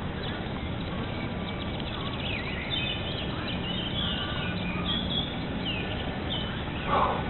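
Birds chirping in a series of short, sliding calls over a steady background hiss, with a brief louder sound near the end.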